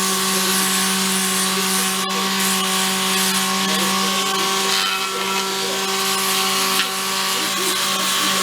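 An electric sander running steadily on a wheel rim: a constant motor hum with a rough hiss of sanding over it.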